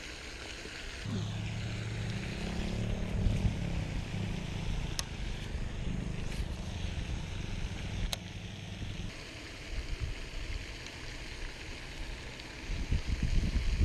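A low, steady motor-like hum starts suddenly about a second in and cuts off about nine seconds in, over a steady hiss. Two sharp clicks about three seconds apart.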